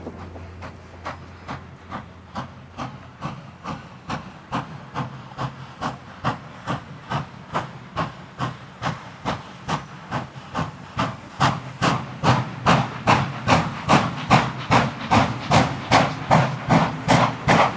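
Pere Marquette 1225, a 2-8-4 Berkshire steam locomotive, chuffing steadily at about two and a half exhaust beats a second and growing louder as it approaches.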